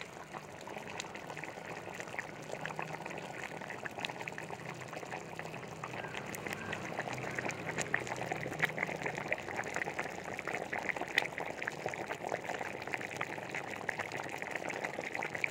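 Crab gravy with coconut milk boiling hard in a kadai: a steady bubbling sizzle with many small pops.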